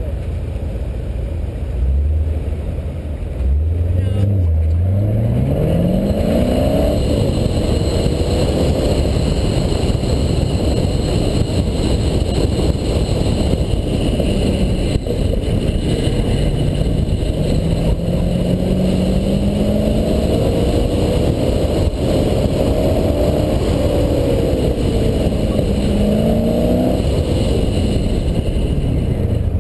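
Chevrolet Corvette C5 Z06's LS6 V8 launching hard about three seconds in, its pitch climbing steeply. It then repeatedly rises and falls as the car accelerates and lifts through an autocross course, under constant wind and tyre noise on a hood-mounted camera.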